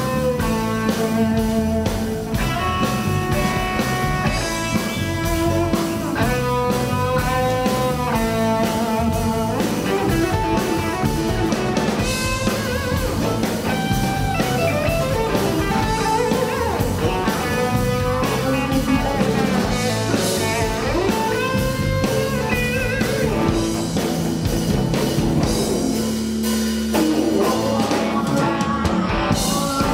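Live country band playing an instrumental passage: bowed fiddle and electric and acoustic guitars over a drum kit with a steady beat. Near the end the drums and bass drop away briefly.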